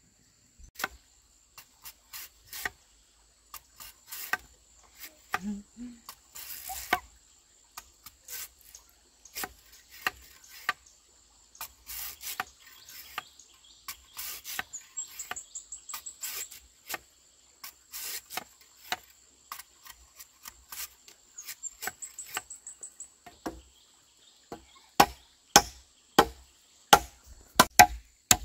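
Machete chopping and trimming wood, a run of sharp irregular knocks that get louder and come about two a second near the end. Insects drone steadily high in the background, with two short trills.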